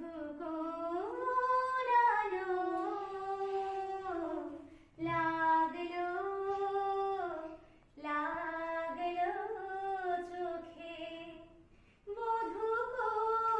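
A woman singing a slow song in long held notes, in four phrases with short pauses between them. A single voice, with no instruments heard.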